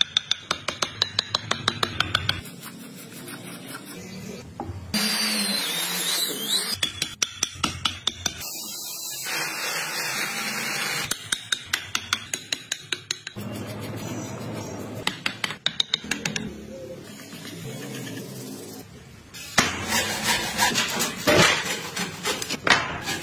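Hand woodworking: runs of quick, sharp taps, about six a second, of a chisel being struck into wood, alternating with stretches of scraping and shaving as wood is carved away. Near the end, dense rough strokes of a hand tool working a board.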